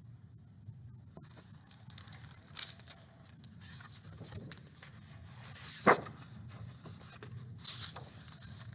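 Paper pages of a hardcover picture book rustling as they are turned, with a few short sharp swishes of paper, the loudest about six seconds in.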